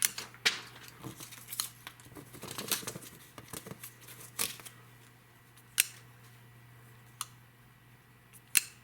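Stainless-steel SOG Aegis FL folding pocket knife being worked open and closed: a run of small clicks and rustling handling noise for the first few seconds, then three separate sharp snaps of the blade spaced over the last few seconds.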